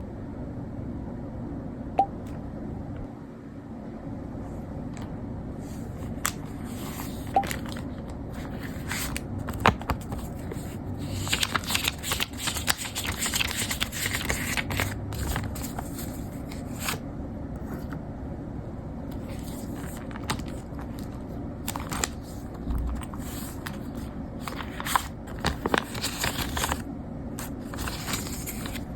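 Objects being handled by hand: scraping and rustling with scattered sharp clicks, the densest rustling about a third of the way in, over a steady low hum.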